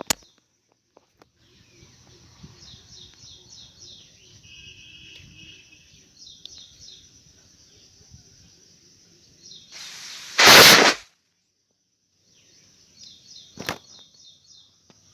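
Dubbed-in fight sound effects: one loud punch hit about ten seconds in and a short sharp smack near the end, over faint outdoor background with repeated high chirps.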